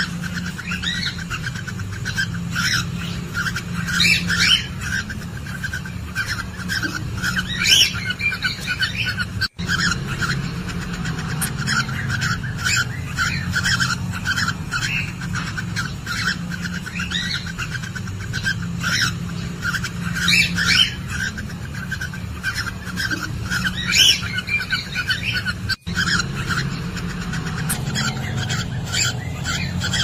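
Cockatiels in breeding condition chirping and calling: a constant busy twitter with louder calls every few seconds, over a steady low hum.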